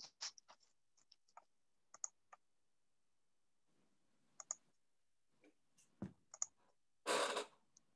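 Faint, scattered clicks of a computer mouse and keyboard being used, with a louder burst of noise lasting about half a second around seven seconds in.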